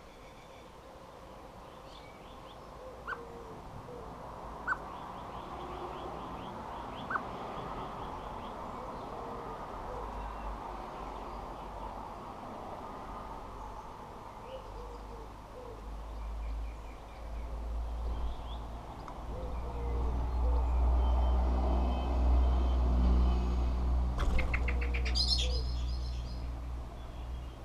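Garden birds calling with short chirps and brief chattering runs, over a low rumble that swells through the second half. A quick, sharp rattle comes near the end.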